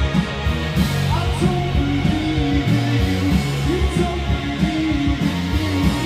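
Live rock band playing, led by electric guitars over a steady bass line.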